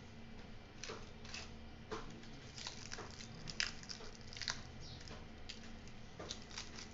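Charred, dried-out leaf wrapping of a roasted fish patrapoda crackling and rustling as fingers peel it open slowly, in scattered small crackles; the parcel is still hot from roasting.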